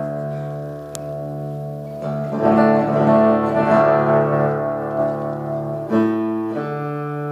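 Acoustic guitar chords strummed and left to ring, with a new chord about two and a half seconds in and a change of notes around six seconds in, as the player works the tuning pegs between chords.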